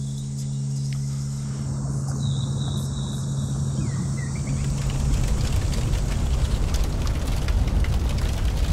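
A steady low hum stops about a second and a half in, and a low, crackling rumble swells in its place, growing louder toward the end: a cinematic rumble building up to a boom.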